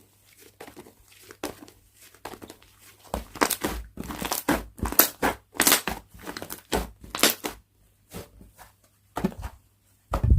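Slime being squeezed and stretched by hand, making crackling, popping squelches. Soft and sparse for the first few seconds, then a dense run of loud pops from about three seconds in, thinning out again near the end.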